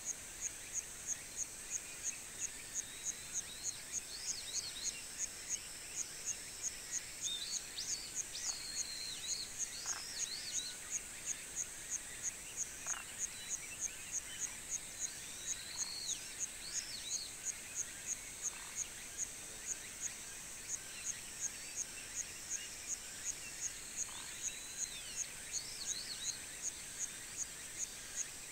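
Summer countryside ambience: an insect singing continuously at a high pitch, pulsing evenly a little over twice a second, with scattered short bird calls over it.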